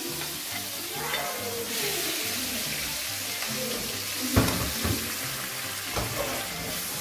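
Marinated pork pieces sizzling in hot oil in a non-stick frying pan as they brown, the hiss growing stronger about two seconds in. The meat is stirred in the pan, with a few sharp knocks around four and six seconds in.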